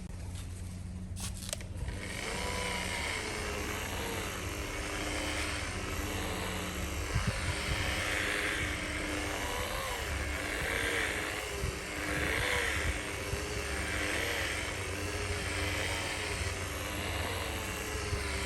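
A small motor running steadily, starting about two seconds in, its whine wavering and swelling about every two seconds.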